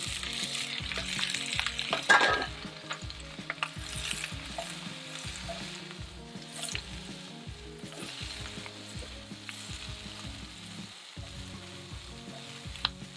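Seasoned Brussels sprouts sizzling and frying in hot rendered bacon fat in a cast-iron skillet. The sizzle is loudest for the first couple of seconds as they go into the fat, then settles to a steady sizzle as they are moved around the pan with a wooden spoon.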